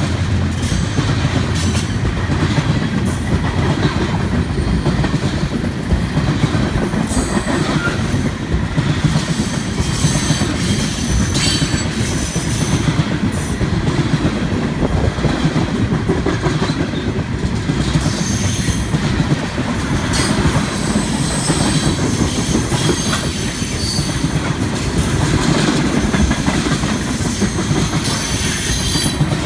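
A string of empty railroad tank cars rolling past close by: a steady loud rumble and clatter of steel wheels on rail, with brief high wheel squeals now and then.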